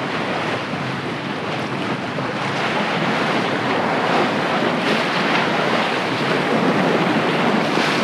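Steady wind buffeting the microphone over choppy sea waves.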